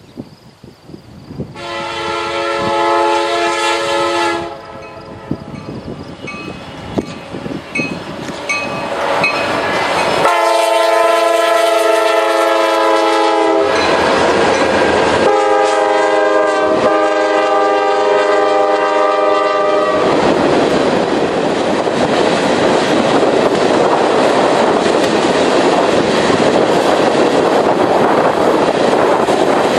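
Diesel freight locomotive's air horn sounding a series of long blasts as the train approaches, followed by the steady rumble and clatter of a long freight train's cars rolling past on the rails.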